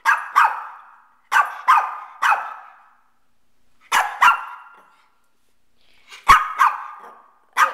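Shih Tzu barking on command to "speak": about ten short, sharp barks in quick pairs and threes, with pauses of one to two seconds between the groups.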